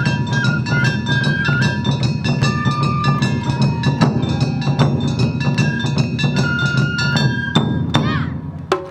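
Awa Odori narimono band playing: taiko drums keep a steady beat under rapid strokes of the kane hand gong, and a shinobue bamboo flute carries the melody in held, stepping notes. Near the end the ensemble breaks off, and a few separate sharp strikes follow.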